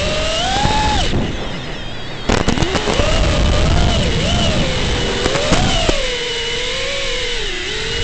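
FPV quadcopter's electric motors and propellers whining, the pitch sliding up and down as the throttle changes. The whine eases off about a second in, then comes back about two seconds in with a brief patch of crackling clicks.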